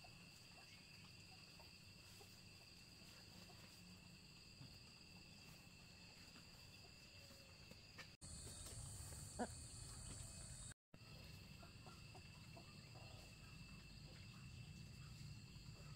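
Near silence: faint background with a steady high-pitched insect drone, and a brief complete dropout of sound about eleven seconds in.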